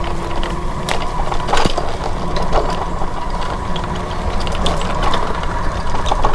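Footsteps crunching on a dirt and leaf trail, irregular soft clicks over a steady low rumble.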